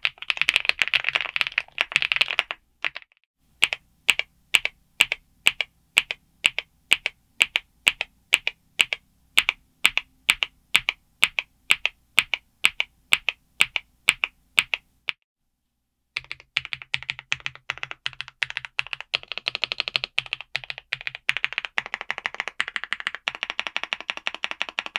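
Kzzi K98 gasket-mount mechanical keyboard with Jerrzi Wind Rain linear switches being typed on fast. About three seconds in, the typing gives way to single keystrokes at an even pace of two to three a second. These stop about fifteen seconds in, and after a second's silence fast typing resumes.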